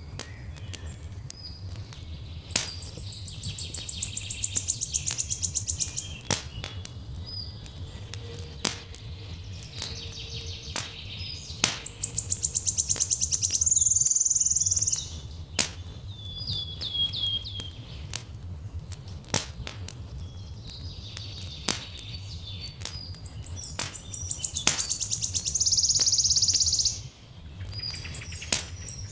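Wood fire crackling with frequent sharp pops, under songbirds: a rapid buzzy trill three times, about every ten seconds, and scattered short chirps. A low steady rumble continues underneath.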